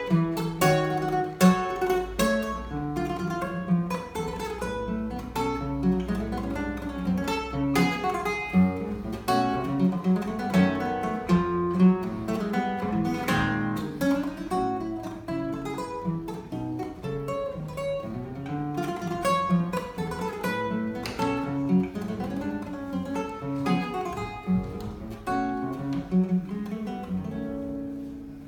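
Solo classical guitar played fingerstyle: a plucked melody over a bass line, with a few sharp accented attacks. A phrase dies away near the end.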